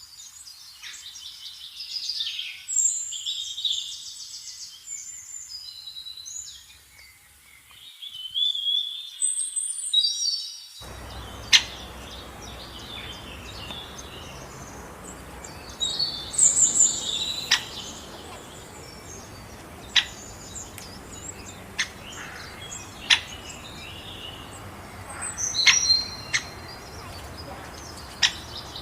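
Several birds chirping and calling in quick, short notes and glides. About a third of the way in a steady background hiss switches on abruptly, and a few sharp single chirps stand out over it later.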